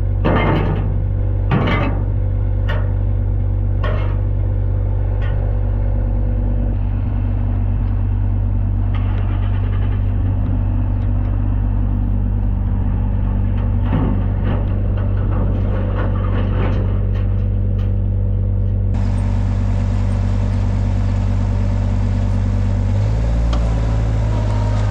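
A large engine-driven machine running steadily with a low hum. A few sharp knocks come in the first seconds, a hiss joins about two-thirds of the way through, and the pitch of the hum shifts near the end.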